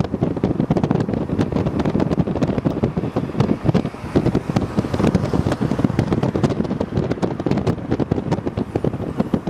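Wind buffeting the microphone over the rumble of a moving vehicle's engine and road noise, a steady low rumble broken by frequent crackling gusts.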